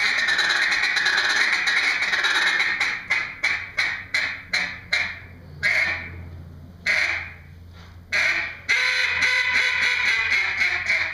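Hand-held duck call blown in a contest routine, imitating a mallard hen. It opens with about three seconds of unbroken quacking, then breaks into a string of short separate quacks that thin out into a few single notes, and finishes with another burst of continuous calling before stopping.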